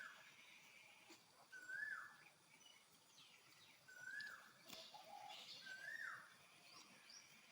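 Lesser whistling ducks calling: four short whistled notes, each rising then dropping, about two seconds apart, with fainter higher chirps in between.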